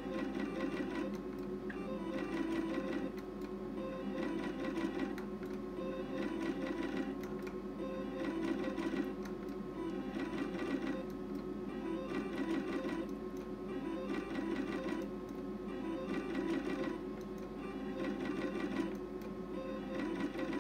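Sizzling Hot video slot machine's reel-spin sounds, a rapid rattling ticking with jingle tones that starts afresh about every two seconds as spin after spin is played at maximum bet.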